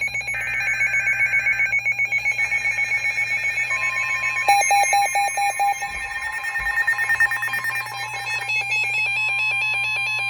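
Weather radio Emergency Alert System tones: fast warbling, stepping data-burst screeches of the alert header, with a steady alert tone joining about four seconds in and a quick run of electronic beeps about a second after that. This signals that a new severe weather warning is about to be read.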